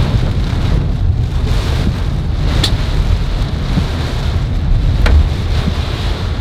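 Heavy rain and hail beating on a car in strong rear-flank downdraft winds of a tornadic supercell: a deep, steady rumble of wind buffeting, with a couple of sharp knocks.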